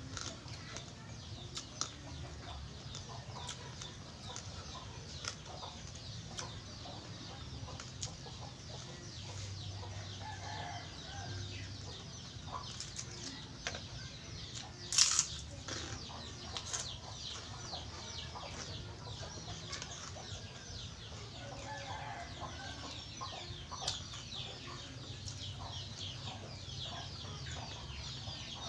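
Close chewing and crunching of crispy pork rinds and raw cabbage, with a sharp crack about halfway through, and hens clucking in the background.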